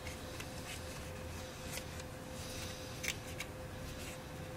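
Faint handling of cardboard packaging and a plastic tube of screwdriver bits: soft rustles and scrapes with a few light clicks, the sharpest about three seconds in.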